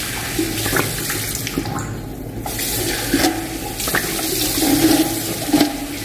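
Tap water running into a bathroom sink while a person washes his face, splashing water up with cupped hands.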